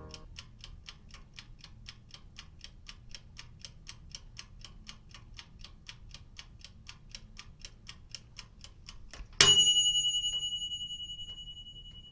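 Faint clock-like ticking, about four ticks a second. About nine seconds in, a single bright bell ding cuts in, the loudest sound here, and rings on, slowly fading.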